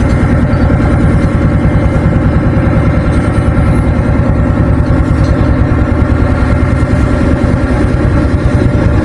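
A heavy engine running steadily and close, with a rapid low throb and a constant hum.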